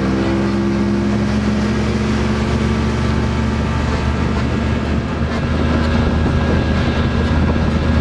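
Outboard motor of a small fishing boat running steadily at speed, over a rushing hiss of water and spray.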